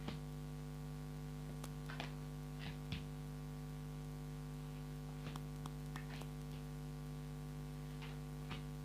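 Steady electrical mains hum, with a scattering of soft clicks and rustles from tarot cards being handled and laid out.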